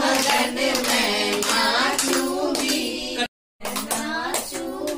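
Several people singing a song together, with hand clapping along. The sound cuts out completely for a moment about three seconds in.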